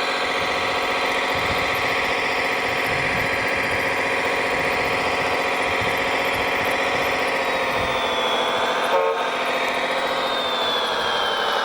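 Radio-controlled scale construction machines running: a steady motor and engine drone with a high whine that slides down in pitch near the end, and one short sharp sound about nine seconds in.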